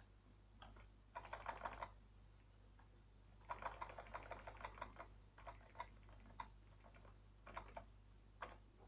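Faint taps on a computer keyboard's plus and Tab keys: a quick run of presses about a second in, a longer run in the middle, then scattered single presses, stepping a date field up one step at a time.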